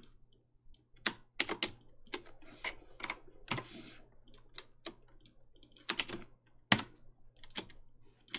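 Computer keyboard being typed on: irregular key taps, a few of them louder strikes, with a brief soft rush of noise about halfway through.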